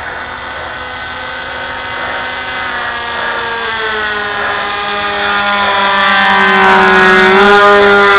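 Electric motors of large foam radio-controlled model jets whining, several steady tones shifting slowly in pitch and growing steadily louder as the planes fly closer.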